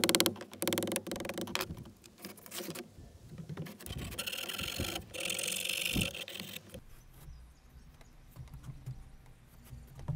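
A hammer taps rapidly at a scored corner of cement backer board, breaking away the waste, then a diamond tile file rasps along the broken edge for about four seconds, cleaning it up.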